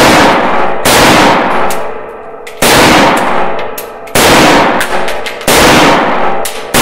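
FEG AMD-65 rifle in 7.62×39 fired one shot at a time, a loud report about every one and a half seconds, six in all. Each shot rings on in the small range room before the next.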